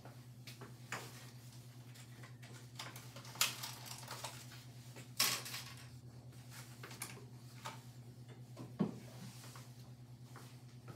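Metal forcible-entry hand tools knocking and clinking as they are picked up and handled, with two louder clanks a few seconds in and lighter knocks scattered through. A steady low hum runs underneath.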